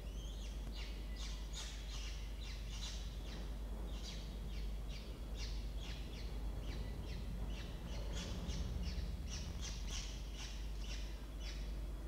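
Newly hatched peregrine falcon chicks cheeping: a long run of short, high, raspy calls, about two a second, over a steady low hum.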